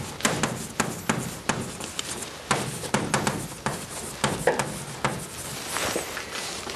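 Chalk writing on a blackboard: a quick, irregular run of taps and short scratches as the chalk forms the letters.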